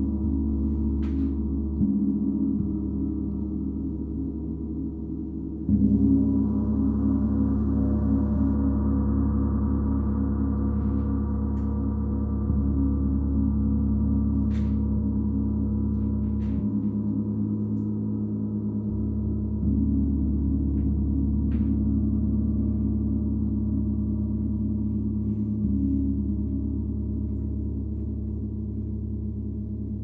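32-inch Paiste Symphonic gong ringing in a dense, sustained low wash of tones. It is struck again about 2, 6, 20 and 26 seconds in, and each stroke swells the sound before it slowly settles.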